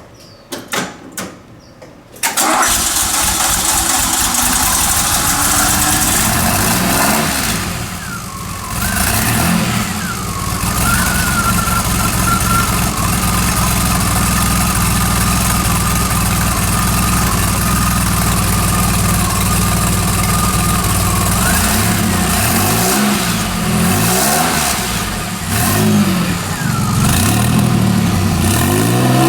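1981 DeLorean DMC-12's PRV V6 with a stainless steel SPEC I exhaust, cranking briefly and catching about two seconds in, then running at a steady idle. Near the end it is revved in several quick blips.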